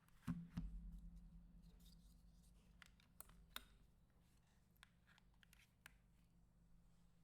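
Two dull thuds about a quarter and half a second in, with a low hum lingering after them. Then a few scattered faint clicks from the NK65 mechanical keyboard's keys.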